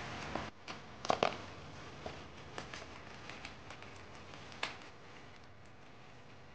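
Bubble wrap crinkling and crackling as a small box is wrapped in it and handled, in scattered sharp clicks, loudest about a second in.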